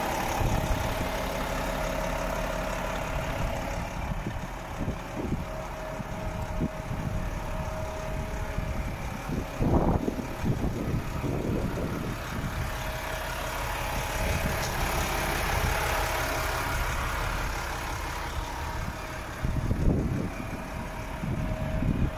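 Volvo FM 450 truck's 13-litre six-cylinder diesel idling steadily. A few brief bursts of wind noise on the microphone come about ten seconds in and again near the end.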